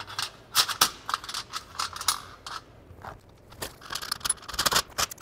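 Irregular metallic clicks and clinks from a microinverter and its trunk cable being handled and fitted into a metal solar racking rail, with a denser run of taps in the second half.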